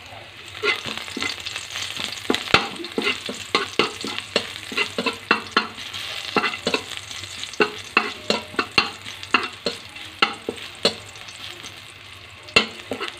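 Chopped garlic sizzling in oil in a stainless steel wok while a spatula stirs it, knocking and scraping against the pan in sharp clicks a few times a second. The stirring stops near the end, leaving the sizzle.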